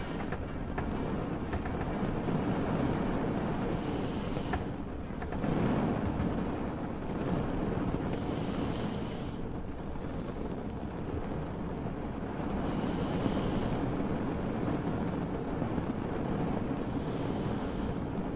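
A boat's engine running at a steady low rumble, with a constant wash of rain.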